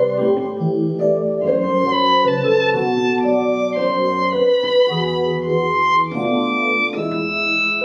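Violin playing a slow melody of held notes, one sliding up near the end, over a quieter accompaniment.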